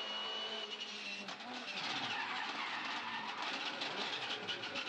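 Onboard sound of a V8 Supercar's V8 engine at speed. About two seconds in its note falls as the car brakes hard and downshifts, followed by quick crackles and tyre skidding as the wheels lock.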